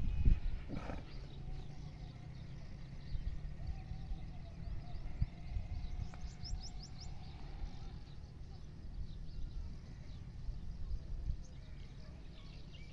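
Steady low rumbling background noise, with a quick run of about six high bird chirps some six seconds in.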